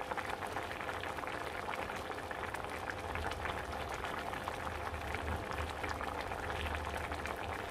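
Sugar syrup boiling steadily in a pot with diced watermelon rind in it: a dense, even crackle of small bursting bubbles. The rind pieces are being candied in the syrup on a medium flame.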